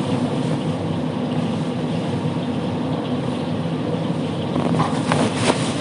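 Steady kitchen machinery hum, a low drone with several fixed pitches, with a few light scrapes and knocks coming in near the end.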